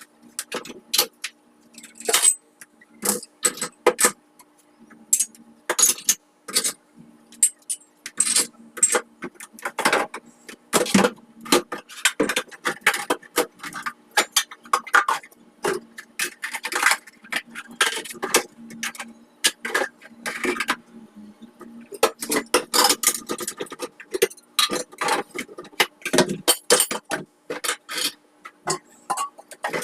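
Irregular clinks and clatter of kitchenware being handled, over a faint steady hum.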